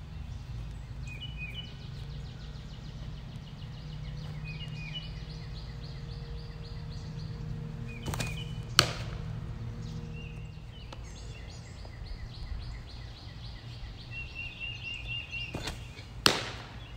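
A pitched softball smacking into the catcher's glove twice, about seven and a half seconds apart, each a sharp pop with a short ring. Birds chirp in the background.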